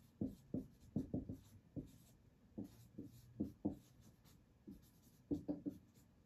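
Writing by hand: faint, quick irregular strokes of a pen or marker tip on a surface, about two to three a second, with short pauses between bursts.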